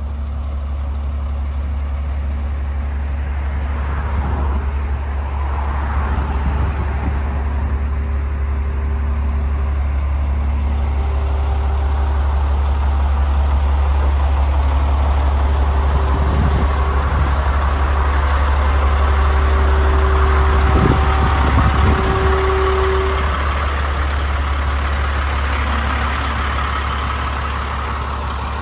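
Large truck engine idling with a steady low drone, with a thin whine that comes and goes in the middle stretch.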